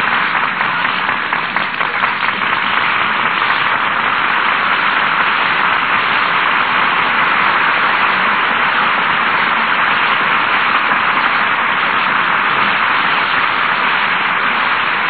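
Studio audience applauding, a steady mass of clapping that holds at an even level.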